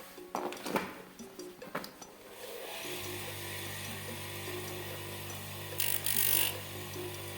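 A few handling knocks, then a small electric grinding tool switches on about three seconds in and runs steadily with a hum. Near the end a brief louder grinding burst comes as a plastic knife-handle insert is ground down to fit.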